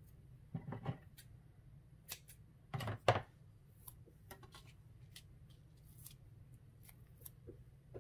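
Paper and card being handled as a glued shaker-card panel is lifted off its base: two short crinkly rustles, about half a second in and a louder one around three seconds in, with scattered light clicks.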